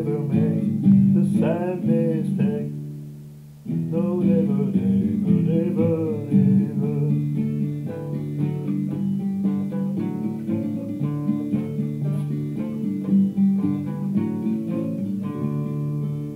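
Acoustic guitar played with a man's voice singing along over the first seven seconds or so. The sound breaks off briefly about three and a half seconds in, and the guitar chords carry on alone in the second half.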